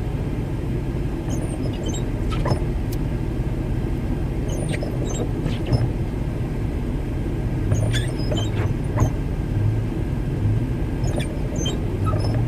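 Steady low rumble of a vehicle heard from inside its cab, with scattered light clicks.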